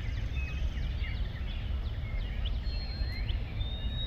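Dawn chorus of many wild birds: overlapping short chirps and whistles, with one long steady whistled note near the end, over a steady low rumble.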